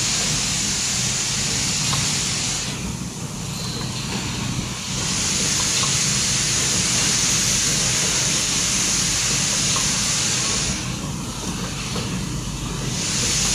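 Automatic coil roofing nail making machine running at speed: a steady dense mechanical hum under a loud hiss. The hiss drops away twice for about two seconds, a few seconds in and again near the end.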